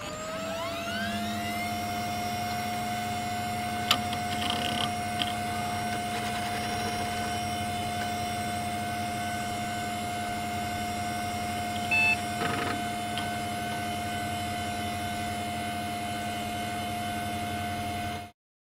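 A computer powering up: its fans and drive spin up with a rising whine over the first second or so, then run as a steady whine and hum. There are a few clicks about four to five seconds in and a brief louder blip about twelve seconds in, and the sound cuts off suddenly near the end.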